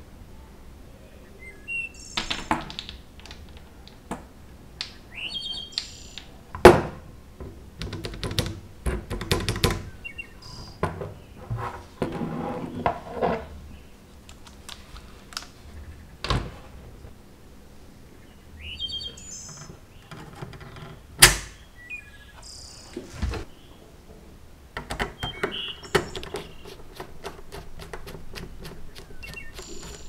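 Scattered clicks and a few sharper knocks from a metal mechanical keyboard case, its plate and switches being handled during assembly. Short high bird chirps sound several times in the background.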